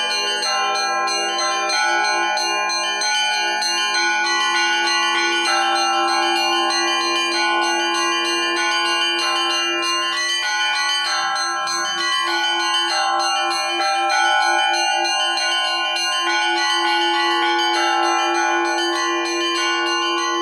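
Russian Orthodox church bells rung by a bell-ringer: a continuous peal of several bells at different pitches struck in a steady rhythmic pattern, their tones ringing on into one another.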